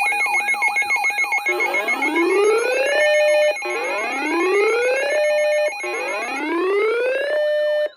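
Electronic siren alarm: a fast up-and-down yelp for about a second and a half, then switching to slow whoops that rise, hold briefly and cut off, three times. Steady pulsing beep tones run underneath.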